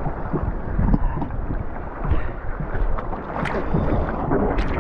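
Sea water sloshing and splashing close to the microphone in the surf, with wind buffeting the microphone.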